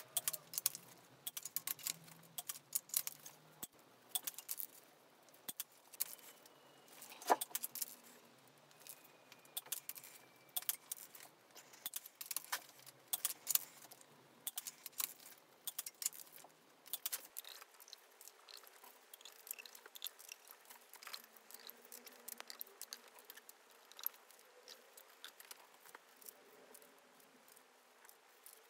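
Irregular clicks and clinks of metal hand tools and engine parts being handled, with one sharper ringing clink about seven seconds in.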